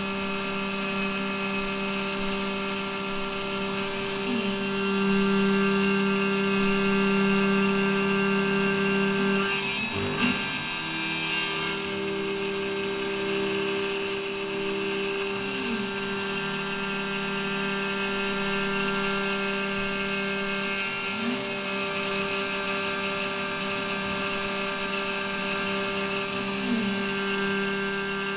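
Desktop CNC milling machine (model 7073) milling aluminium: a steady spindle whine over the sound of the end mill cutting. A few brief pitch glides come and go every several seconds, and there is a short break and jolt about ten seconds in.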